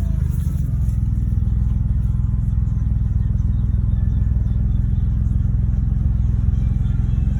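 2011 BMW 328i's inline-six engine idling steadily just after being started, with a rough idle that rechecking the ignition coils has not cured.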